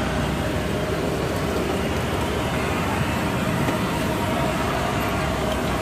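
Steady rush of cabin air conditioning inside a Boeing 747-400 during boarding, an even noise that does not change.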